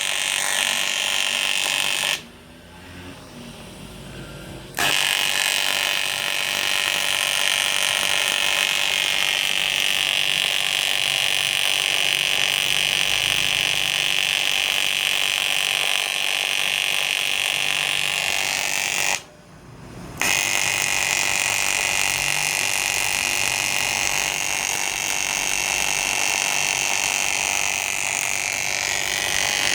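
Welding arc from a 200 A AC/DC pulse welding machine, a steady high buzz. The arc stops about two seconds in for roughly two and a half seconds, and again briefly a little past the middle, then strikes up again.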